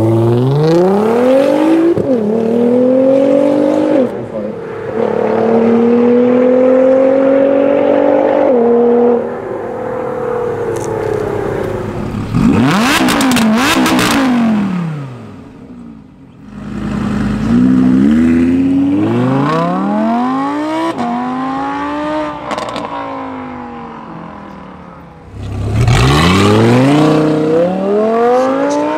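Sports-car engines of a Nissan GT-R and Audi R8s accelerating hard from a standing start, one run after another. Each rises in pitch through several quick upshifts. About halfway through, a brief rev brings a burst of loud exhaust cracks and pops.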